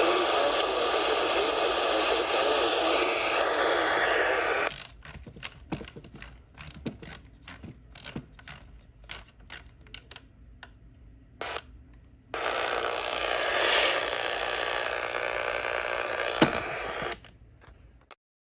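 Radio receiver hiss and static, broken for about seven seconds by a run of quick mechanical clicks and rattles. The static then returns, and it cuts off just before the end.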